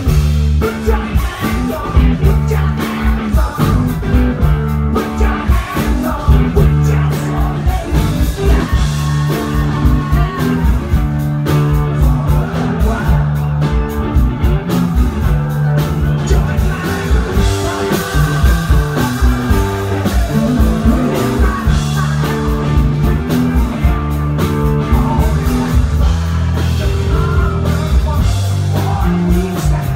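Live rock band playing loud through a PA system: electric guitars, bass and a drum kit keeping a steady beat, with a singer.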